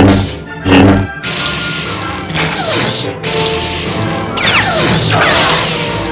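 Dubbed lightsaber sound effects, clashing hits and falling swooshes of the blades, over music.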